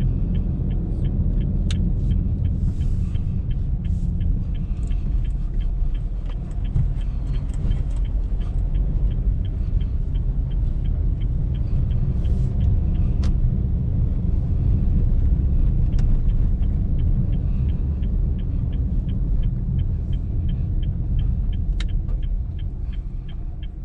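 Cabin sound of a moving 2019 Honda Brio V CVT with its 1.2-litre four-cylinder engine: a steady low rumble of engine and road, with a light regular ticking a few times a second. The rumble fades in the last couple of seconds as the car eases off.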